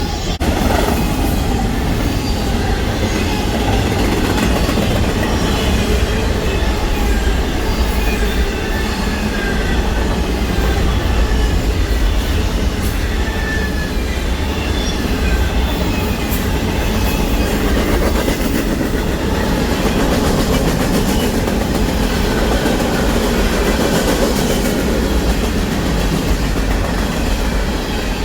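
Freight train cars rolling past close by, a loud, steady noise of steel wheels on the rails, with faint wavering high squeals from the wheels throughout.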